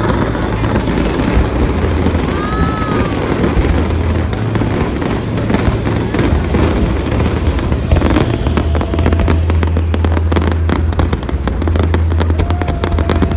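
Fireworks display going off: a constant low rumble of bursting shells under rapid crackling, with the crackling densest from about eight seconds in.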